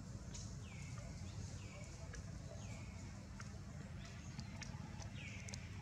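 A faint, high animal call that drops quickly in pitch and then levels off, repeated about once a second, over scattered soft clicks and a steady low rumble.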